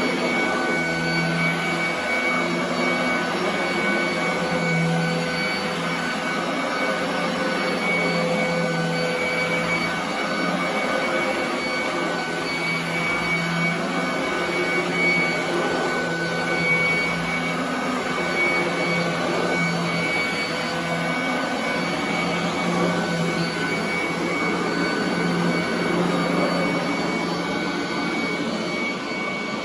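Royal commercial vacuum cleaner running steadily over carpet: a continuous motor whine over airflow noise, with a low hum that swells slightly every few seconds.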